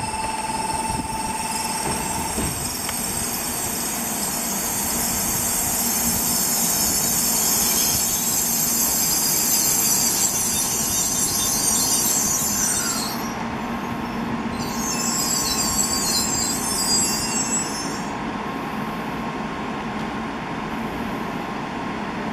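N700A-series Shinkansen train braking into a station, its brakes squealing with a steady high-pitched note over the rolling rumble. The squeal breaks off about thirteen seconds in, returns for a few seconds and stops about eighteen seconds in as the train comes to a halt, leaving a steady hum.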